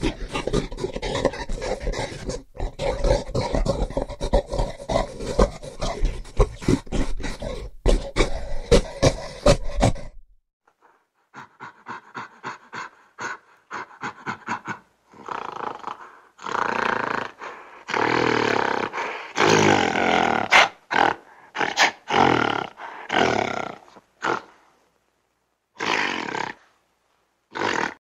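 Gorilla vocalizations: about ten seconds of dense, rough roaring, then after a brief gap a quick run of short grunts, followed by longer roars separated by pauses.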